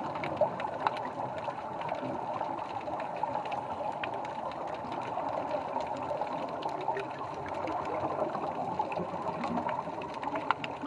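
Underwater sound of scuba divers' exhaled bubbles rising from their regulators, a steady bubbling hiss with many scattered sharp clicks.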